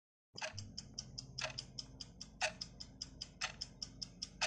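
Quiz countdown-timer sound effect: rapid, even clock ticking with a heavier tick once a second, counting down the answer time. It starts a moment in.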